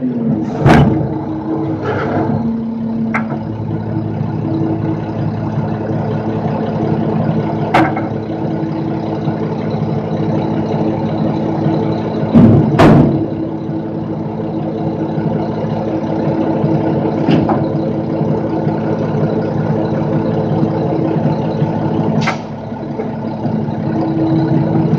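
Front-load garbage truck engine idling steadily, with occasional sharp knocks and clanks, the loudest about a second in and again around halfway through.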